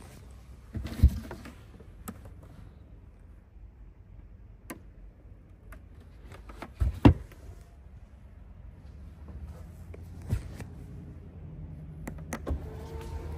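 Thuds and knocks of the Lamborghini Urus's cargo floor panel being handled, loudest about a second in and about seven seconds in. Near the end there are a couple of clicks as the tailgate-close button is pressed, and the steady hum of the power tailgate motor starts.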